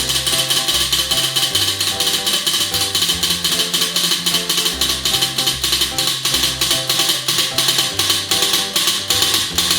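Background music with a fast, steady percussive beat over a stepping bass line.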